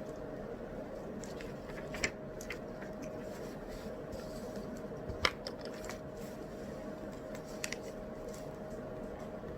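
Steady room background noise with a faint steady hum, broken by a few small desk clicks and taps from someone studying: one about two seconds in, the sharpest a little after five seconds, and a light pair near the end.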